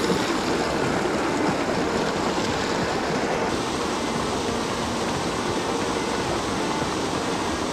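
Steady rush of creek water tumbling over a small waterfall and through rapids. The hiss thins slightly about three and a half seconds in.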